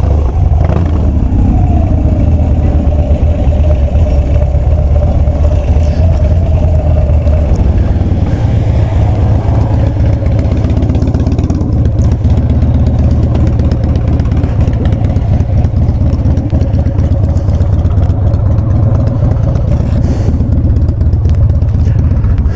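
Harley-Davidson Dyna Street Bob's V-twin engine running steadily, a deep low rumble with a steady higher drone over it.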